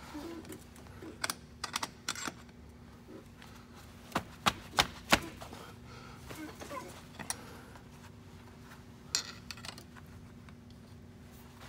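Sharp metal clicks and taps of hand tools on the splined input shaft of a heavy truck's power divider: a few scattered ones, then four loud ones in quick succession near the middle, and one more later. A steady low hum runs underneath.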